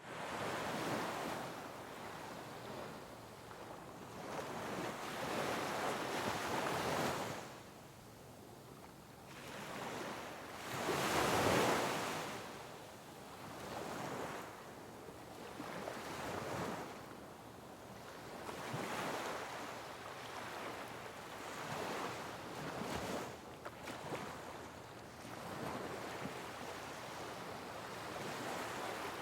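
Sea waves breaking on rocks, the surf swelling and falling away every few seconds, with the biggest wave crashing about eleven seconds in.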